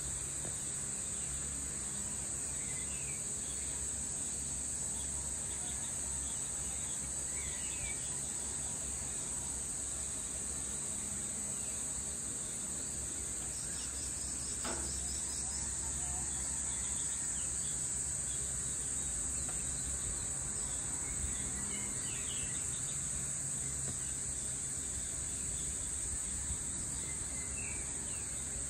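A steady, high-pitched insect chorus drones throughout, with a few short bird chirps now and then and a low hum underneath.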